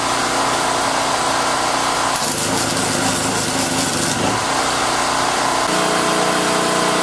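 Flux-core wire-feed welder arc crackling steadily, a dense frying hiss, while tack-welding steel mounts onto angle iron. A steadier hum comes in underneath during the last second or so.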